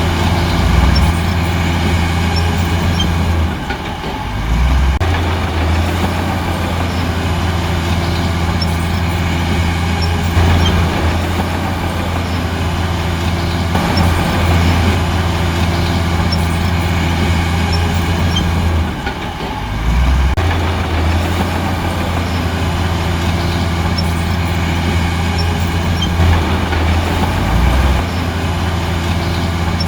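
Diesel engine of heavy earthmoving machinery running steadily under load, with a deep, even hum; twice, about four seconds in and again a little past halfway, the revs dip and the engine note glides before settling back.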